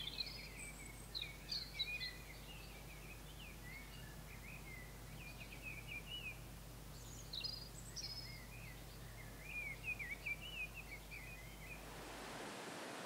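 Small songbirds singing in quick, high, chirping phrases with short gaps, over a faint steady low hum. Near the end this gives way to the even rush of a shallow river running over stones.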